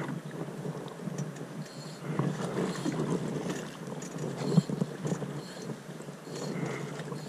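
Water sloshing and splashing around a drift boat's hull and oars as it is rowed on a river.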